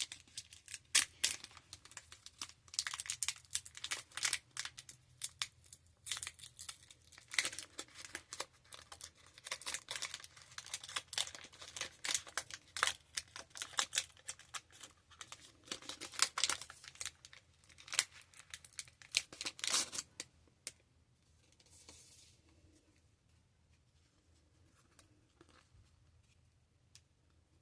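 A trading card pack's wrapper being torn open and crinkled in the hands: dense crackling for about twenty seconds, then only a faint rustle.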